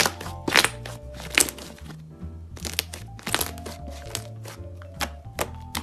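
Thick white slime squeezed and pressed by hand, giving sharp crackling pops, loudest right at the start and then every half second to a second or so. Light background music plays steadily underneath.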